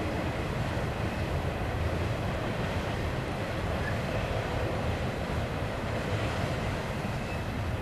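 Double-stack container train's well cars rolling past, a steady low rumble of wheels on rail with an even rushing noise over it.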